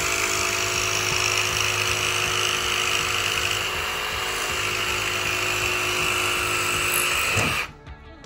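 Milwaukee M18 Fuel cordless jigsaw cutting a beadboard panel: a steady, loud saw noise as the blade runs through the board, cutting off suddenly near the end.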